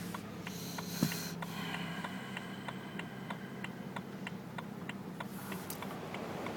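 Rhythmic ticking from the front left wheel of a BMW 335i, about three ticks a second, with high squealing tones around the first two seconds and a single sharp knock about a second in. This is the screech the owner is trying to identify; its cause is unknown.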